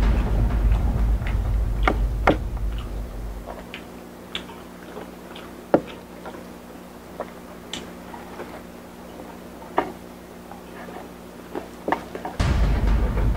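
Close-miked eating of spicy fried dumplings: scattered sharp crunches and clicks from chewing and wooden chopsticks. A low rumble under them fades out about three seconds in and comes back near the end.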